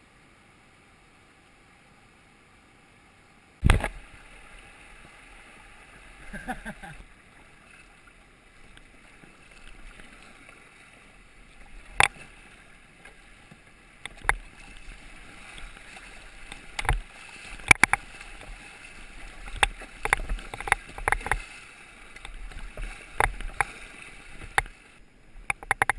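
Paddling a plastic sit-on-top kayak through a shallow rocky riffle: water rushing and splashing along the hull, with many short knocks and clacks from the paddle and hull. The loudest is a hard knock about four seconds in; before it there is only a faint steady hiss.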